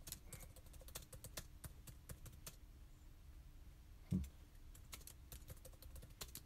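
Faint typing on a computer keyboard: quick, irregular key clicks that thin out after about two and a half seconds. A brief low hum from a voice comes about four seconds in.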